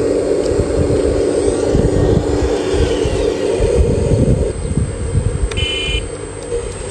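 Hydraulic pump of an RC Liebherr 970 model excavator running with a steady hum while the boom and bucket move. The hum eases off about four and a half seconds in, over an uneven low rumble.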